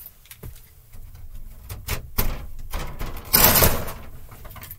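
Handling noises as things are moved about: a few short knocks, then a loud scraping noise lasting about half a second, about three and a half seconds in.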